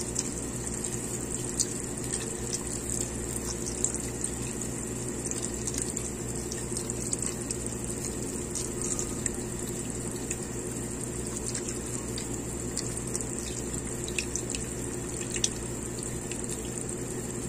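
Evaporated milk pouring in a thin, steady stream into a pot of chicken stew, a continuous trickling splash, with scattered small ticks and pops.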